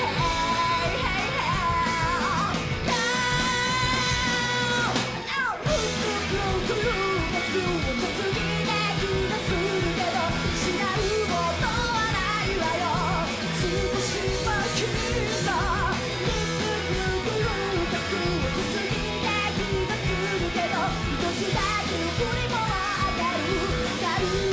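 Live punk-rock band playing loud, with electric guitars, bass and drums under a woman singing and shouting lead vocals. A long held note about three seconds in, and a brief break in the sound near five and a half seconds.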